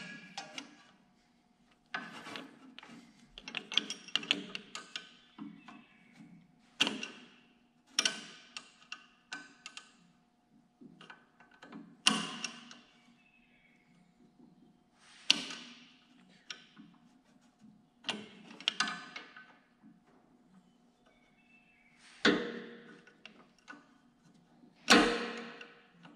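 Hand tools clicking and knocking against metal parts in a Ford 8N tractor's ignition area as a stuck bolt is worked at: sharp clicks every second or few seconds, some in quick clusters, over a faint steady hum.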